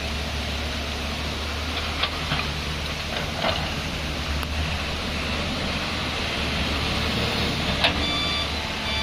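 Heavy diesel machinery, a Tata Hitachi excavator and tipper trucks, running with a steady low rumble, with a few sharp knocks and clanks. A reversing alarm starts beeping near the end.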